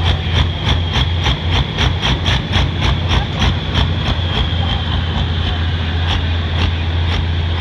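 Diesel engine of a hot farm pulling tractor idling steadily with a deep hum, with a regular tick about four times a second and a faint high whine over it.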